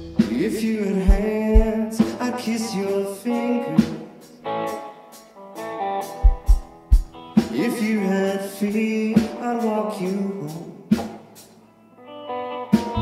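Rock band playing an instrumental passage: electric guitars with bent notes over bass and sparse kick-drum hits, thinning out twice before the full band comes back in.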